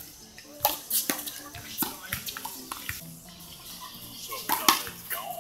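Small rubber handball being slapped by hand and smacking off a concrete handball wall during a rally: sharp slaps at uneven intervals, the loudest pair about four and a half seconds in.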